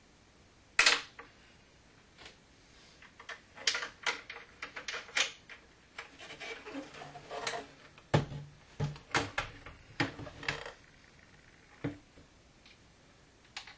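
Wooden plantation shutter panel and its hinge hardware being handled and fitted into a window frame: scattered clicks, taps and knocks of wood and metal, the loudest a sharp knock about a second in, with two busier spells of clatter in the middle.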